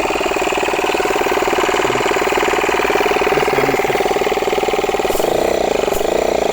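Small electric air compressor running steadily with a rapid pulsing chatter, pumping air into a reverse osmosis storage tank that will not hold pressure, a sign that its inner bladder has failed.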